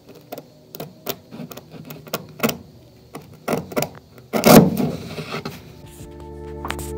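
Steel scissors snipping slowly through a sheet of core mat, a run of small irregular clicks and crunches. About four and a half seconds in there is a short, loud rushing burst, and music fades in near the end.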